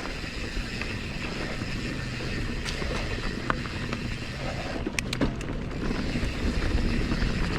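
Giant Trance mountain bike rolling along dirt singletrack: a steady low rumble of tyres and rattle from the bike, with a few sharp clicks and knocks around the middle.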